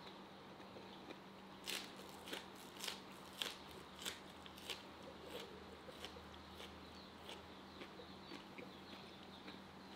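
Crisp crunching bites into fresh green onion stalks, about six sharp crunches a little over half a second apart, followed by quieter chewing.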